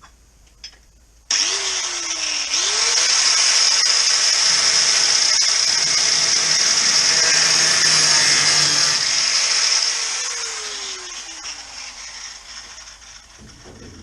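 Power cutting tool, most likely an angle grinder, cutting through the sheet steel of a classic Mini's rear quarter panel. It starts suddenly about a second in and runs with a loud, high hiss. About two-thirds of the way through it winds down, its pitch falling until it stops near the end.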